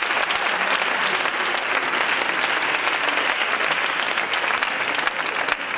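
A large group of people clapping continuously and out of step, a dense patter of many hands.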